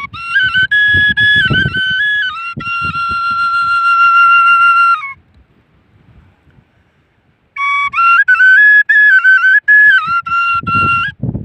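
A flute playing a short melody of stepped notes that ends on a long held note. After a pause of about two seconds, it plays the phrase again.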